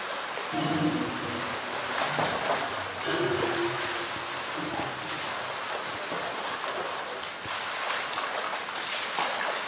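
Water splashing and sloshing as a polar bear wrestles a floating blue plastic drum in its pool, pushing it against the wall.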